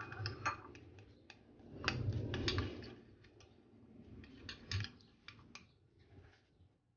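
Irregular light clicks and taps of kitchen utensils against a bowl and worktop, with a short louder rub or scrape about two seconds in.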